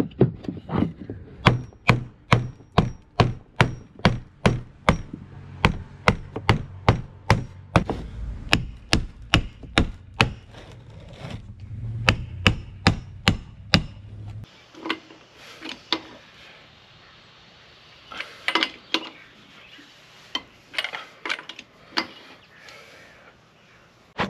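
Hand-tool work tightening an underslung spare tire's mount: a long run of sharp, evenly spaced knocks, about two or three a second, then fewer, scattered knocks after about fourteen seconds.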